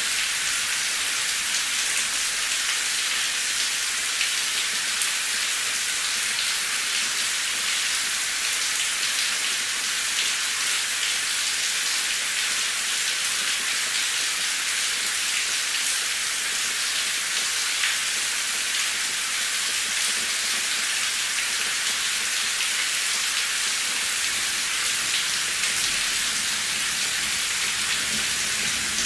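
Steady rain falling, an even high hiss with many fine drop ticks on a hard surface.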